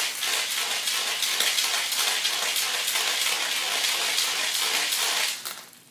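Marbles under a cloth, rubbed hard across a ceramic tile floor: a steady scraping rattle of many small clicks that stops shortly before the end.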